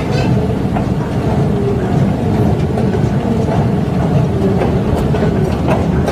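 Loud, steady low rumble of an underground MRT station's machinery, with a faint wavering hum above it.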